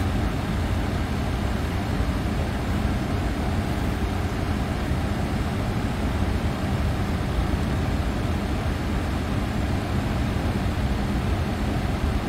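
Steady low rumble and rush of air: the background noise of a Boeing 747 flight deck on the ground before departure, unchanging throughout.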